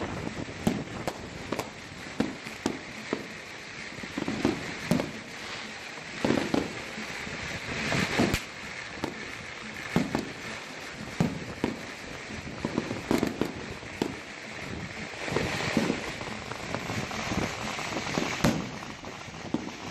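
Aerial fireworks and firecrackers going off: many irregular bangs of varying loudness, with stretches of crackling from bursting stars.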